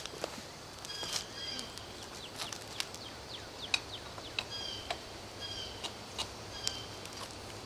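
A bird calling in the background, a short high chirping phrase repeated about once a second, with a few light clicks and taps from a crescent wrench being fitted onto a bicycle pedal.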